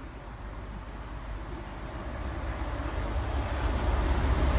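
Rumble of an approaching train, growing steadily louder.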